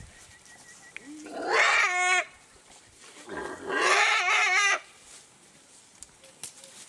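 Elephant calf squealing twice: two drawn-out calls, each about a second or more long, the first rising into a steady note and the second wavering in pitch.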